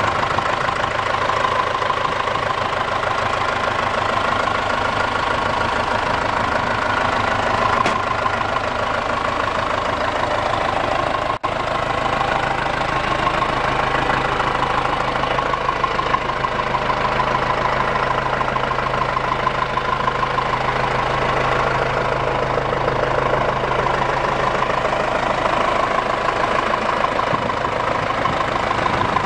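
John Deere 6410 tractor's four-cylinder diesel engine idling steadily, heard close to the open engine bay. The sound breaks off for a moment about eleven seconds in.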